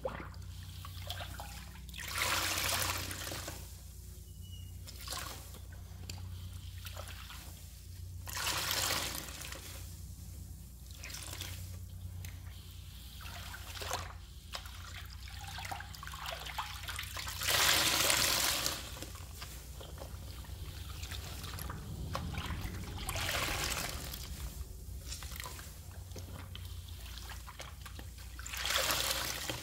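Soapy sponge being rinsed with water: water trickling and dribbling from it, with about four louder gushes as the sponge is squeezed, the loudest about two-thirds of the way through.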